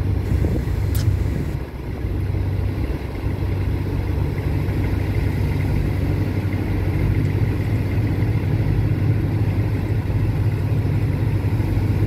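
Boat engine running steadily, an even low drone, with one faint click about a second in.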